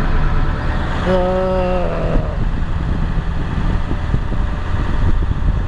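Vehicle engine running steadily: a loud low rumble with a faint steady hum in it.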